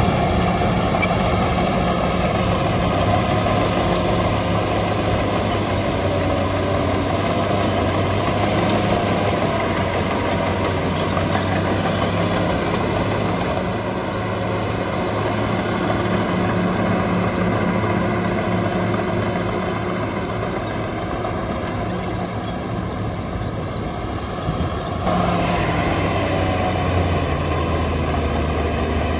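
Shantui DH17 bulldozer's diesel engine running steadily as the machine works, with a steady low hum that eases a little in the middle and comes up again a few seconds before the end.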